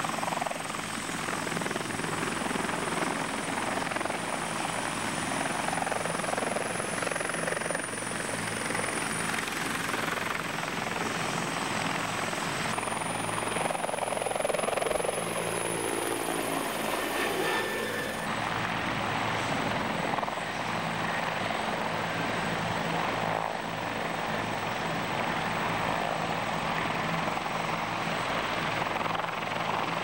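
Military helicopters, mainly CH-146 Griffons, running close by: a steady rotor beat under a high turbine whine. Between about 13 and 18 seconds in, one flies low past and its sound rises and falls; the high whine cuts off suddenly soon after.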